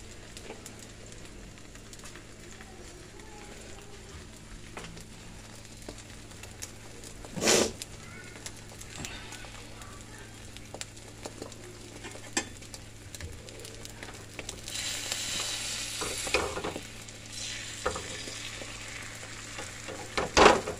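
Egg omelette sizzling in oil in a kadai on a gas stove: a steady low sizzle that swells for a couple of seconds about two-thirds of the way in. A few single knocks come in between, and a short clatter near the end.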